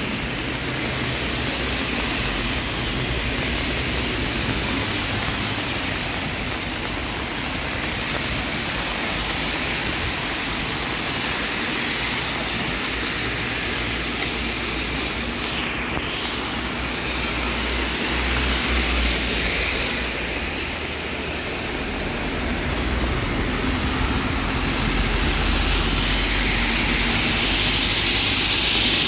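Heavy rain and rainwater running over a storm-drain grate half-blocked by litter, a steady rushing hiss. Near the end it grows louder as car tyres swish through the standing water on the flooded road.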